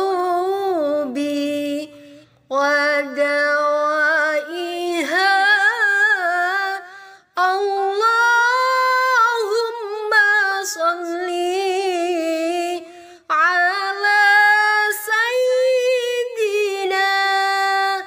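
A woman singing an Arabic sholawat unaccompanied, in four long, ornamented phrases with brief pauses between them.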